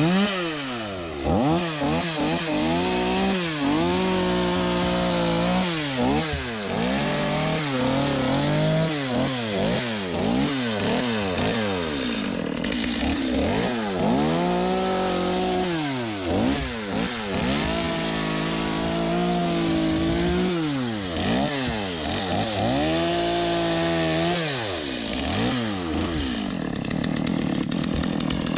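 Two-stroke chainsaw being revved up and down in quick bursts, with several stretches held at high revs for a second or two; it settles to a lower speed near the end.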